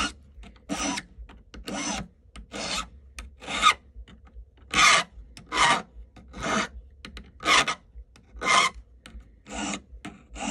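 A number 2 half round hand file rasping on a metal silverware peg in regular strokes, about one a second, with short gaps between them. The file cuts on each forward stroke.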